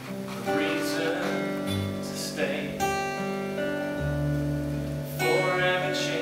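Acoustic guitar strumming chords, with a low note sounding about two-thirds of the way through. It is played unplugged, without amplification.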